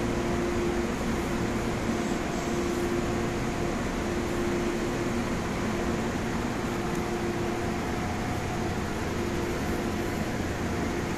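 Steady air-conditioning and fan noise in a powered-up, stationary MTR A-Train passenger car, with a faint steady tone that keeps dropping in and out.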